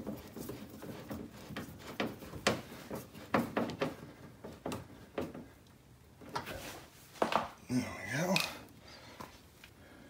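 Hand screwdriver turning a Phillips-head screw through a flexible mud flap into the wheel arch: a run of small clicks and creaks. A short wavering sound follows about eight seconds in.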